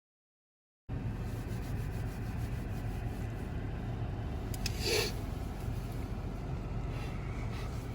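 Steady low rumble of a car engine idling, heard from inside the car's cabin. It begins about a second in, and a brief short noise stands out about five seconds in.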